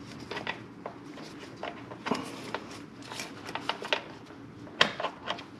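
Hand ratchet and socket working small engine bolts: scattered light metal clicks and taps, with one sharper click near the end.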